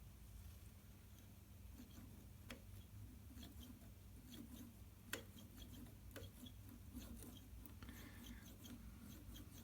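Faint scratching and light clicks of a scriber marking a line in layout fluid on a steel bar, over a low steady hum, with one sharper click about five seconds in.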